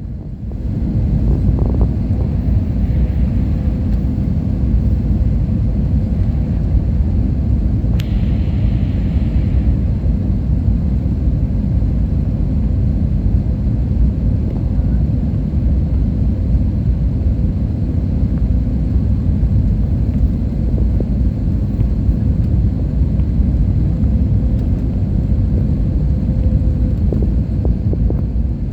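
Steady low rumble of a passenger jet's engines and airflow heard inside the cabin, with a single sharp click about eight seconds in.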